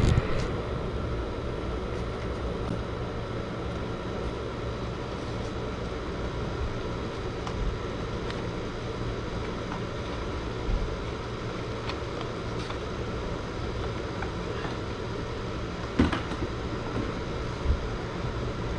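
Steady low background hum, with two short knocks near the end as a plastic bucket is set down on concrete.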